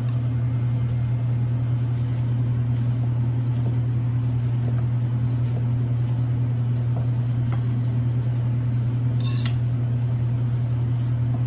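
Steady low hum of commercial kitchen equipment, with faint clicks of a chef's knife slicing roast duck breast against a ceramic plate, the sharpest about nine seconds in.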